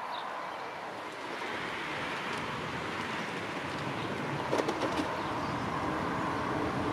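Bicycle riding noise: tyres rolling over a paved cycle path with wind on the microphone, growing louder about a second and a half in. There are a few clicks about four and a half seconds in, and a steady low hum comes in after that.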